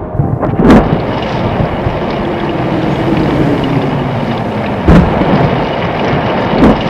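Storm sound effect: a steady wash of rain and wind with thunder cracks about a second in, near five seconds and again near the end.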